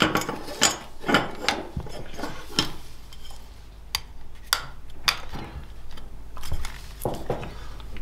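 Irregular small clicks and light knocks as a motorcycle indicator and its cable are handled and fitted into a tail tidy bracket on a wooden workbench.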